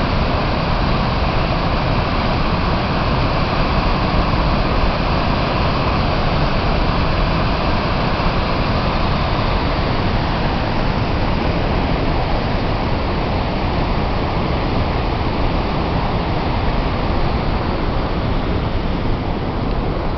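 Waterfall plunging down a rock face into a rocky stream: a steady, loud rush of falling water.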